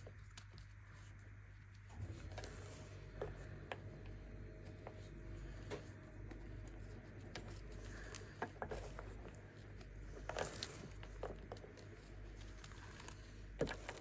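Compressed baking soda being crushed. Scattered soft crunches and crackles start about two seconds in, with louder crunches around ten seconds and again near the end, over a faint steady low hum.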